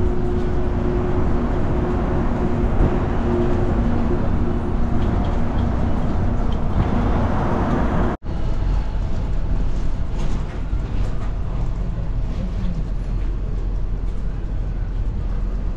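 Shuttle trolley bus running on the road: steady engine and road noise with a low hum. The sound changes at an edit cut about halfway through.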